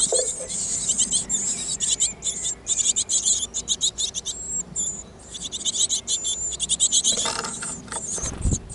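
Great tit nestlings begging from inside the nest cavity: rapid high-pitched chittering in two long bouts with a brief lull between them, the calls that greet a parent arriving with food. A thump near the end.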